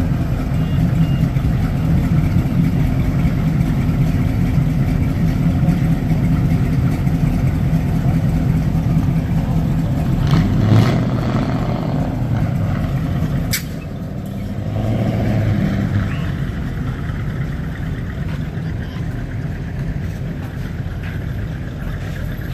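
Chevrolet El Camino's engine idling as the car creeps past, swelling briefly about ten seconds in. A sharp click comes about halfway through, after which the engine sound is quieter.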